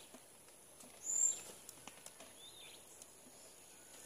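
A bird gives one short, high-pitched call about a second in, and a softer call follows a little later, over a steady thin high-pitched drone and faint scattered clicks.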